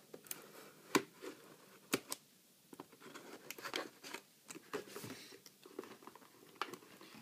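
Tape being cut and peeled off the sealed flap of a cardboard box: irregular scratching and tearing with a few sharp clicks and taps against the card.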